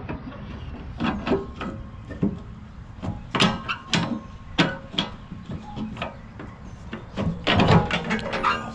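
A string of irregular clicks and knocks from things being handled, with a steady low hum underneath.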